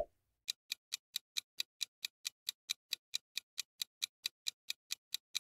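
Clock-ticking countdown-timer sound effect: short, even ticks, about four or five a second, starting about half a second in.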